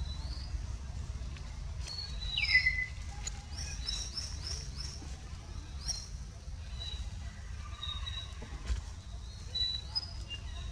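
High-pitched chirping calls, each falling in pitch, some single and drawn out, others in quick runs of several short notes, over a steady low rumble.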